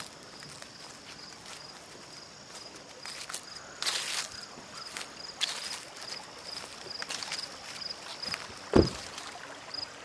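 Footsteps walking on an outdoor path, under an insect's steady high-pitched chirping of about three pulses a second. A single low thump, the loudest sound, comes near the end.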